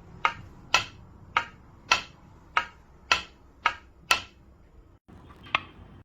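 A run of eight sharp clicks or taps, evenly spaced about half a second apart. After a short break comes one more click.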